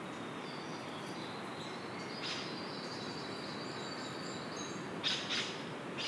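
Birds calling: thin, high whistled notes held for a few seconds, then two short harsh calls about five seconds in, over a steady background hiss.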